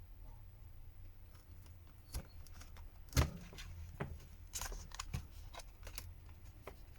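Scattered small clicks and taps of a plastic pry card working a phone's glued back cover loose around the camera, with one sharper snap about three seconds in and a few more clicks near four and a half seconds.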